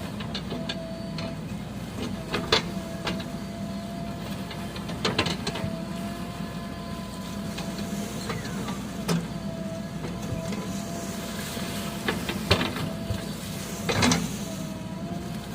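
Diesel engine idling steadily, with a few sharp knocks or clanks over it.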